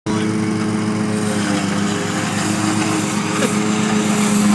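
Petrol lawn mower engine running steadily at a constant speed.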